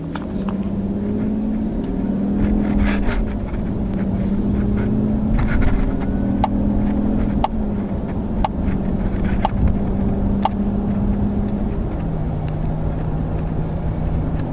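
Mercedes cabin while accelerating from a standstill: engine and road noise, with the engine note drifting and dropping a few times as the gearbox shifts. About halfway through, a run of five short beeps comes about a second apart.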